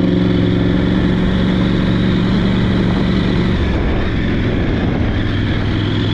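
KTM 890 Adventure R's parallel-twin engine running under way, with wind rushing over the microphone. The engine note holds steady for the first two seconds or so, then fades and breaks up as the throttle eases.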